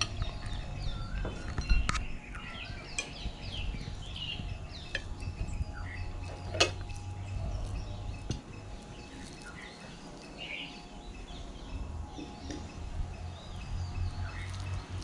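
Small birds chirping and calling in short, varied notes, with a few sharp clinks of plates and cutlery, the strongest about 2 and 6.5 seconds in.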